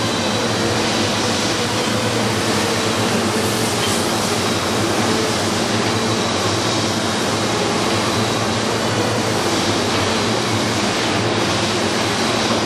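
Steady hum of heavy industrial machinery running: a low drone with several steady tones under an even noise, with no starts, stops or knocks.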